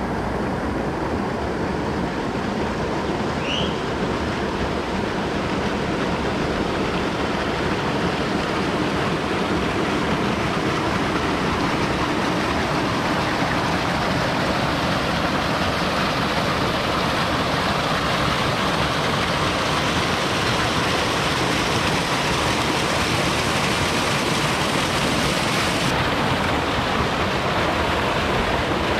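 Steady rushing and splashing of a mountain river, water pouring over granite rocks into a pool. Near the end the rush turns brighter as a small waterfall comes close. A single short high chirp sounds about three seconds in.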